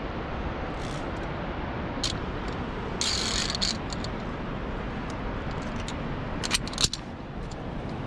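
Steady rushing noise, with a few short metallic clicks and clinks of via ferrata gear on the steel safety cable and rungs: one about two seconds in, a brief cluster a second later, and two close together near the end.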